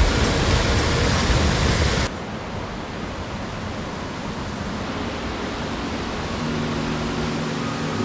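Mountain stream rushing over granite boulders, loud and full at first. About two seconds in, it cuts suddenly to a quieter, duller rush of water. Faint background music comes in near the end.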